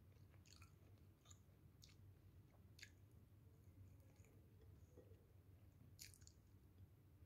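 Faint mouth clicks and lip smacks of someone chewing pigeon meat and potato eaten by hand, a few scattered sharp ones, the clearest about six seconds in, over a low steady hum.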